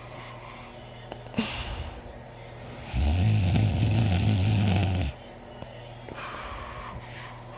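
A sleeping person snoring: one loud, low, fluttering snore about two seconds long, starting about three seconds in, with quieter breaths before and after it.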